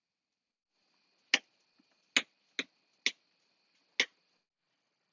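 Switches on a 12-volt accessory switch panel clicking as they are pressed: five sharp clicks spread over about three seconds.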